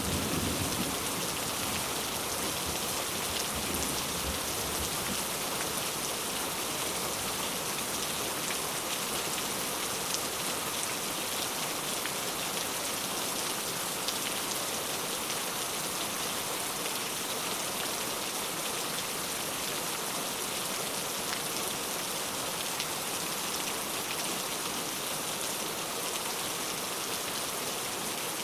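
Heavy rain falling in a steady, even hiss. The last of a thunder rumble fades out in the first second.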